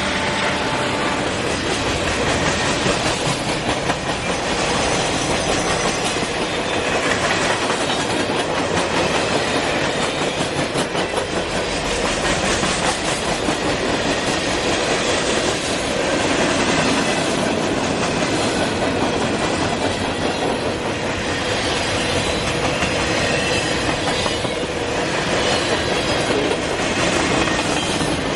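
Freight train rolling past at close range: a steady loud rumble of wheels on rail with a rhythmic clatter as the cars' wheels cross the rail joints.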